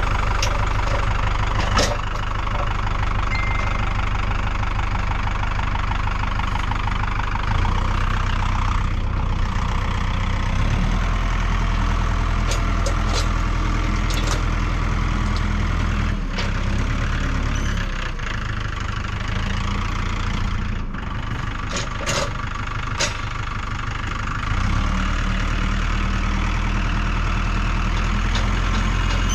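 Engine running at idle, its speed changing several times as it is worked, with a few sharp metallic clanks, about two seconds in and again around twelve to fourteen and twenty-two seconds.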